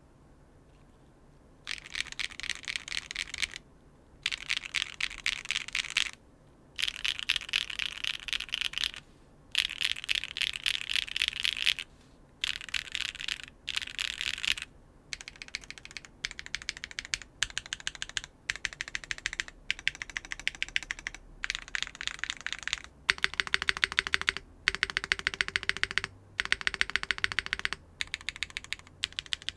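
Rapid typing on a Neo 75 CU mechanical keyboard fitted with Gateron Sage linear switches, a carbon fibre plate and no foam. Bursts of fast keystrokes about two seconds long come one after another with short pauses, starting about two seconds in.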